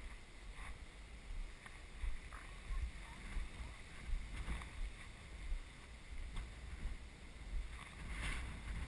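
Footsteps scuffing on bare granite, about one a second, over a low rumble on the microphone of a camera worn while walking.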